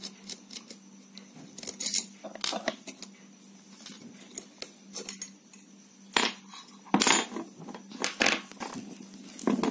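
Small metallic clicks, clinks and scrapes from a screwdriver working the screws of an electric soldering iron's metal barrel as it is taken apart. The loudest clinks come about six to eight seconds in.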